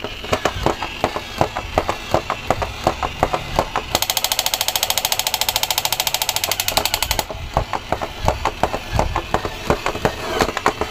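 Battery-powered crawling soldier toys clattering across a wooden tabletop, their plastic limbs knocking unevenly. About four seconds in, a rapid, even rattle of the toy's machine-gun sound effect runs for about three seconds.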